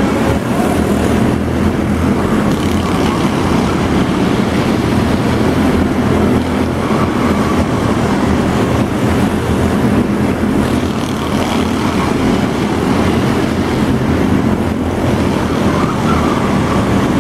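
Engines of several small stock-style race cars running together on an indoor arena track, a loud, steady engine noise with no pauses.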